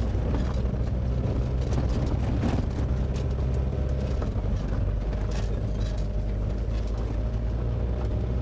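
Car engine running steadily with road noise, heard from inside the moving vehicle's cabin, with scattered short knocks and rattles.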